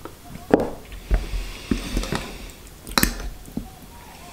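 A fork clicking and scraping on a plate as a forkful of salad is picked up, mixed with wet chewing sounds. Two louder knocks stand out, about half a second in and about three seconds in.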